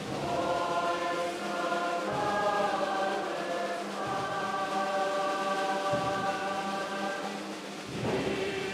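Orchestra, led by its massed strings, playing slow sustained chords that change about every two seconds.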